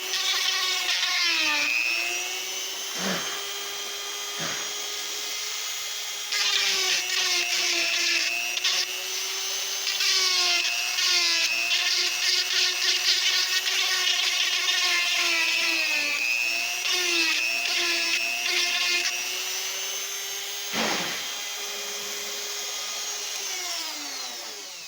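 High-speed rotary tool with a modified cutter grinding old Acraglass bedding and wood out of a rifle stock's action inlet. The motor whines steadily and dips in pitch each time the cutter bites, with rasping cutting noise in the middle. It spins down at the very end.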